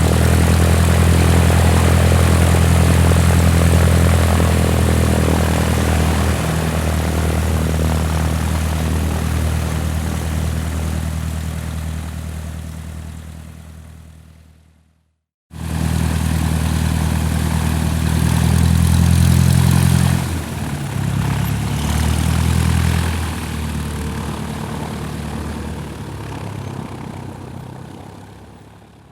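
Biplane's piston engine and propeller running as a steady low drone that fades out. After a short silence halfway through, a second run starts, its engine note drops about five seconds in, and it fades out again near the end.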